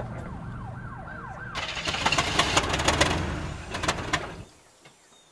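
A car engine rumbling under a siren's repeated falling wails. Then a loud rushing, rattling clatter for a few seconds that cuts off abruptly about four and a half seconds in.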